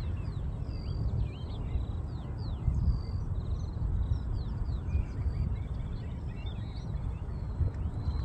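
Small birds chirping and trilling, with many quick rising and falling whistles, over a steady low rumble.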